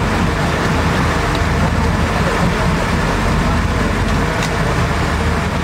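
Sportfishing boat running under way: a steady low engine drone with the rush of wind and water.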